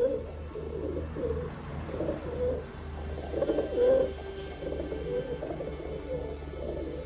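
Feral pigeons cooing repeatedly in a group, with wavering, throaty calls, over a low steady hum.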